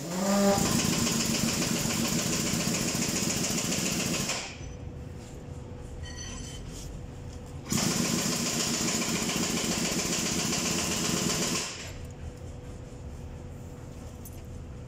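A motor running in two bursts of about four seconds each, with a third starting near the end; each burst rises quickly in pitch as it starts, then holds steady before cutting off.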